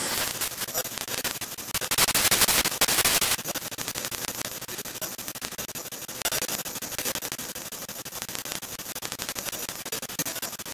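Crackling static hiss that cuts in suddenly, louder for about a second and a half around two seconds in. The recording itself is glitching, as in a tape dropout.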